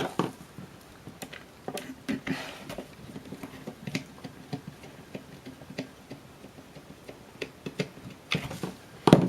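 Screw being driven back into a plastic phone handset with a small screwdriver: scattered light ticks and clicks of the screw and plastic parts being handled, with a louder knock of plastic near the end.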